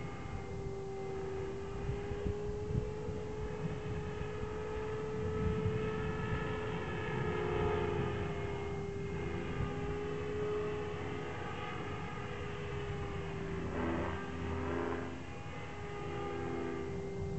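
Align T-Rex 500 electric radio-controlled helicopter in flight, its motor and rotor making a steady whine that wavers slightly in pitch and dips briefly about fourteen seconds in.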